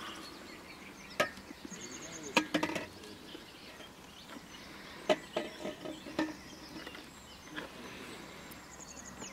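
Scattered knocks and clicks of fishing tackle being handled while a fish is landed, with a few sharper knocks in the middle. A short run of quick high chirps comes about two seconds in and again near the end.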